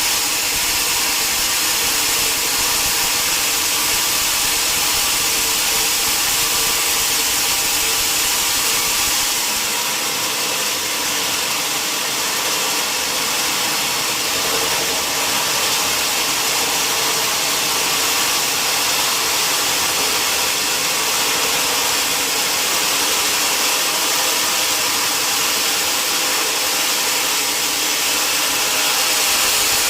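Sawmill saw running steadily through a log of wood, a loud continuous mechanical noise with a faint steady hum. The low rumble drops away about ten seconds in.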